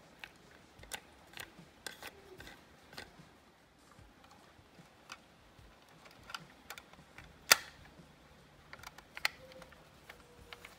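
Scattered small clicks and taps from handling the parts of a toy model ambulance, with one sharp click about two-thirds of the way through and a smaller one shortly after.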